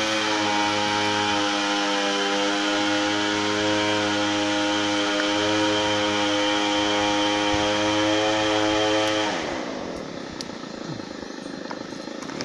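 An engine runs at a steady pitch, then about nine seconds in its pitch drops and the sound fades, as if it slows down or moves away. A fainter engine note glides back in near the end.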